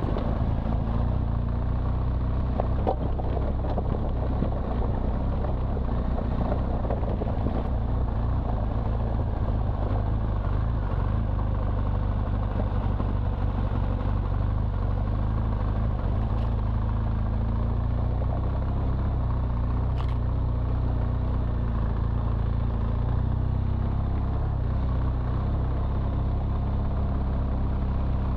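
BMW R1200GS Adventure's boxer-twin engine running at a steady pace as the motorcycle rides a rocky dirt track, with tyre noise from the rough surface.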